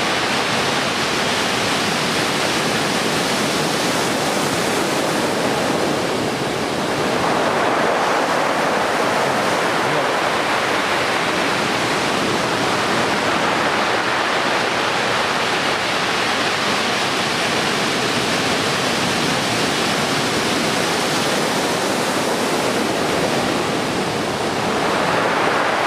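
Heavy typhoon-swell surf breaking on a beach: a steady wash of wave noise that swells louder about seven seconds in and again near the end.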